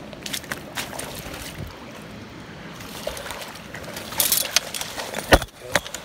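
Steady rush of river water below a dam, with footsteps and small handling knocks over it and a heavier thump a little after five seconds.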